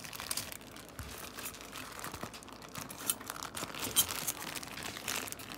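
Packaging crinkling and rustling as parts are dug out of a box, with irregular crackles and small clicks and one sharper click about four seconds in.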